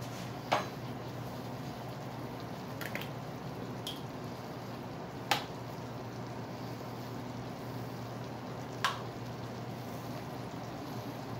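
Apple slices simmering in a brandy reduction sauce in a frying pan: a steady bubbling sizzle as the sauce reduces, with four sharp pops from bursting bubbles spread through it.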